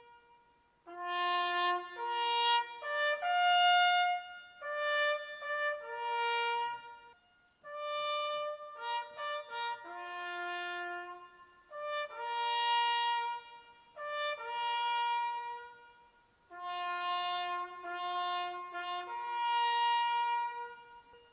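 Solo trumpet playing a slow call of long-held notes in phrases with short pauses between them, the tribute call played during a moment of silence.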